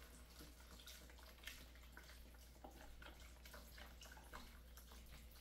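Faint splashing and dripping of chicken broth going into a pot of sausage and vegetables, in irregular little splashes. The liquid has stopped any sizzle in the pot.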